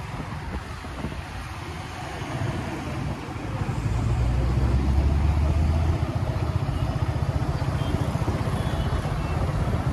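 Road traffic and motorcycle engine noise heard while riding a motorbike along a city street. A low rumble swells a few seconds in and drops back about six seconds in.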